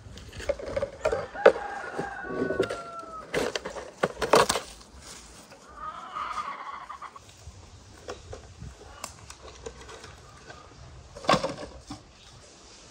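Chickens: a rooster crowing about a second in, with clucking, and a few sharp knocks around four seconds in and again near the end.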